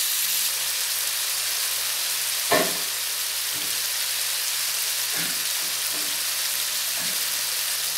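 Salt cod, onion, cherry tomatoes and olives frying in olive oil in an electric skillet: a steady sizzle, with one brief louder noise about two and a half seconds in.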